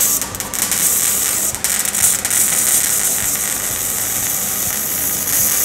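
MIG welding arc crackling steadily as a bead is laid on a steel exhaust pipe; the wire-feed welder is run with CO2 shielding gas.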